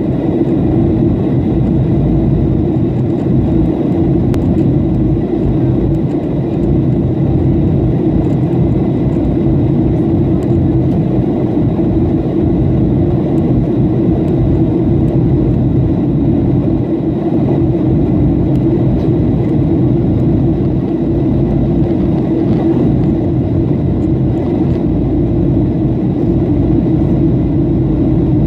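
Steady cabin noise of an airliner in flight: the jet engines and the rushing air make an even low rumble, with faint steady high-pitched tones over it.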